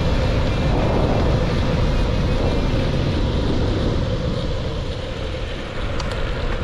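Wind buffeting the microphone and tyres humming on asphalt as a mountain bike coasts fast downhill, a dense steady rush. It eases slightly about five seconds in, and a couple of sharp clicks come soon after.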